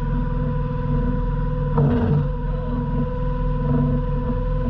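Yamaha outboard engine of a small fishing boat running steadily, with a constant whine over the drone, and a single knock about two seconds in.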